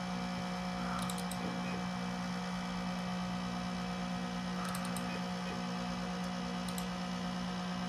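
Macintosh SE's cooling fan and external hard drive droning steadily and loudly, a fan noise the owner believes is abnormal. Small clicks come in three quick groups, about one second in, about five seconds in and near seven seconds, as folders and a file are double-clicked with the mouse.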